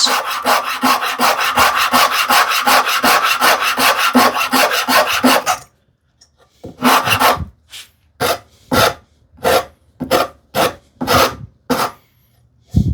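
Hand rasp scraping across wood as a corner of a wooden strip is rounded over. The first half is a quick run of about five strokes a second. The strokes stop briefly at about five and a half seconds, then resume as slower, separate strokes.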